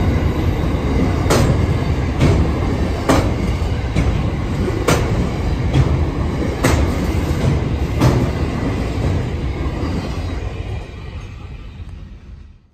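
Container freight train passing on the near track: a loud rumble of the wagons with a sharp clack of wheels over the rail joints about once a second. It fades away near the end as the tail of the train goes by.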